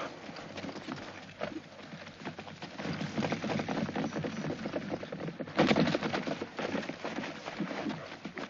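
Horses galloping over dry, stony ground: a dense, irregular clatter of hoofbeats that thickens about two and a half seconds in, with its loudest burst a little past the middle.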